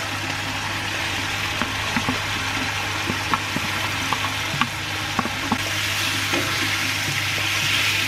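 Spice paste sizzling in a frying pan as beef skin, lemongrass and leaves are scraped in and stir-fried with a metal spoon, with a steady hiss. Scattered clicks come from the spoon knocking against the plate and the pan.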